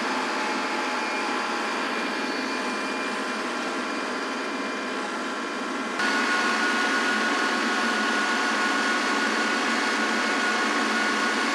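Kubota compact tractor's diesel engine running steadily while it drags a box blade through gravel. The sound gets abruptly louder about six seconds in.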